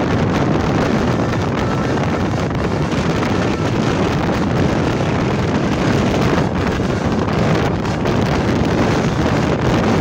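Wind rushing through the open window of a moving car, buffeting the microphone, over the road noise of the car.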